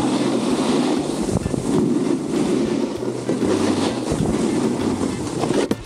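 Snowboard sliding and carving over packed snow, a steady scraping rush, with wind buffeting the microphone.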